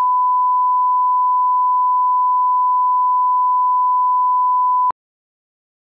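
Steady 1 kHz line-up test tone of a programme countdown leader, a single pure beep that cuts off abruptly about five seconds in.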